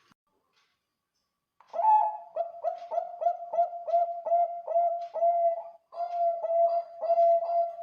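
Zebra dove (perkutut, Bangkok song line) cooing. After a second and a half of silence, it gives a quick run of short, clipped coos at a steady pitch, three or four a second, with a brief break about six seconds in.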